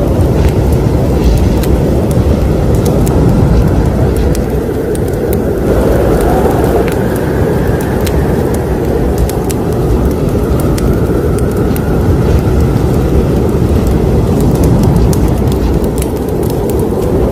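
Wood fire burning in a fireplace: a steady roar with scattered sharp crackles and pops throughout.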